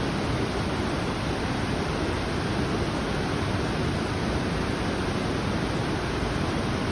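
A waterfall rushing: a loud, steady roar of falling water.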